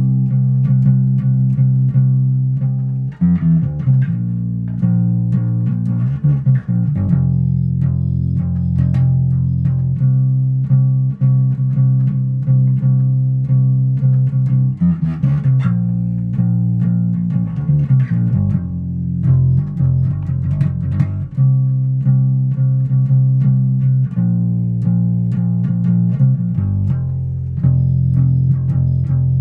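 Electric bass guitar played as the opening of a song being practised: a riff of repeatedly plucked low notes that moves to a new note every few seconds.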